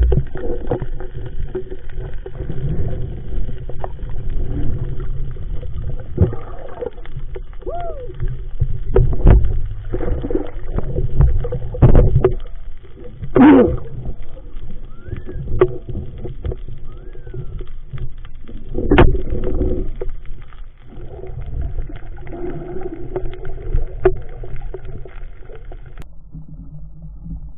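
Water sloshing and gurgling picked up by a camera held underwater, with scattered knocks and bumps, the strongest about 13 and 19 seconds in. About 26 seconds in the sound drops to a quieter, duller rumble.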